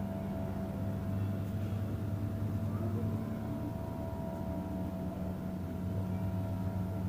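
A steady low hum with a fainter higher tone above it, easing off for a couple of seconds in the middle and then coming back.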